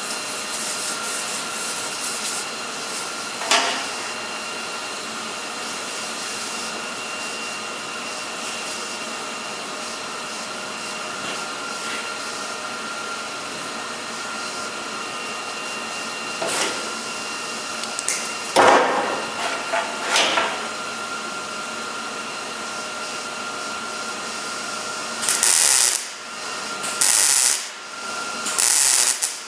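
MIG welder welding sheet metal on a car's trunk and frame rails: a long steady run of welding noise, broken by a few sharp knocks, then several short welding bursts one after another near the end.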